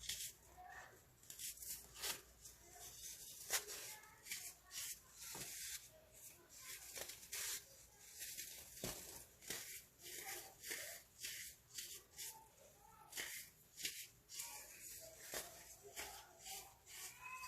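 Crunchy baking soda crackling and crumbling in a rapid, irregular series of sharp crunches, several a second.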